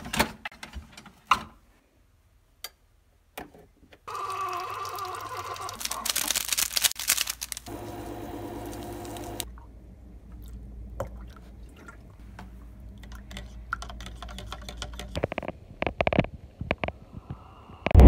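Keurig single-cup coffee maker: a pod clicked into the holder and the lid closed, then the brewer running for about five seconds, a hiss with steady whirring tones as the coffee streams into the cup. Milk is then poured quietly into the mug, with a few small clicks.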